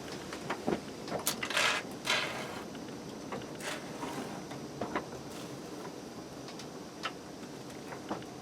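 Spray foam can being handled against a door: scattered clicks and knocks, with two short spray hisses between one and two seconds in.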